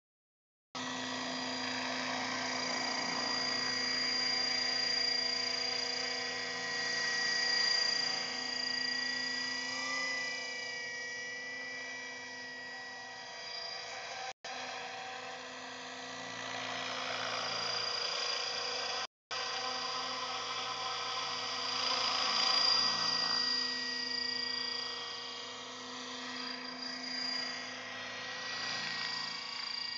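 Align T-Rex 600 radio-controlled helicopter in flight: a steady high whine with a rotor hum underneath, its pitch wavering a little and its loudness swelling and fading as the helicopter moves about. The sound cuts out completely for a moment at the start and twice in the middle.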